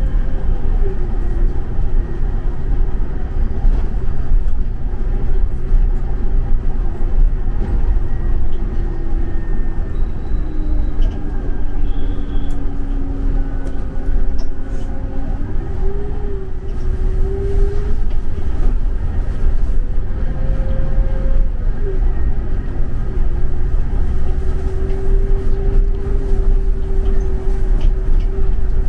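Scania Caetano Levante 2 coach under way, heard from inside: a steady low rumble of engine and road noise, with an engine hum that drifts slowly down in pitch and jumps back up about halfway through.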